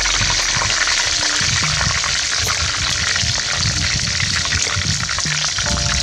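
A whole chicken deep-frying in a pan of hot oil, sizzling and crackling steadily as the oil is ladled over it.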